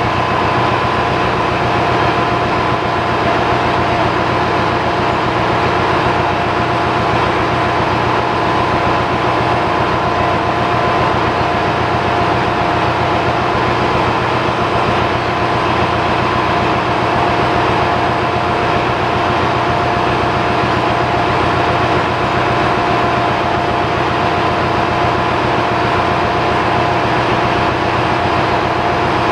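Loud, steady engine-room machinery noise: other running diesel machinery and ventilation, an even din with a low rumble and two steady whining tones that do not change.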